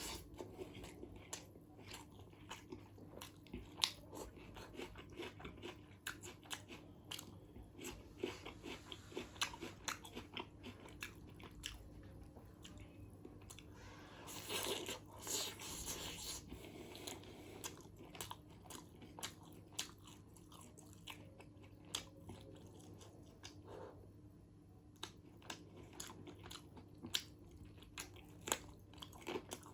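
Close-miked eating of chicken biryani: steady chewing with many short wet mouth clicks and crunchy bites, with a louder, denser stretch of crunching about halfway through.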